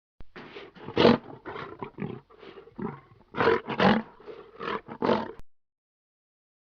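An animal giving a rapid series of harsh, rough calls, about a dozen in all, the loudest about a second in and again near four seconds, then cutting off abruptly.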